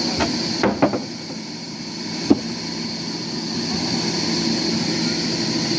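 Sawmill machinery running steadily, with a few short knocks in the first second and a sharper one about two seconds in.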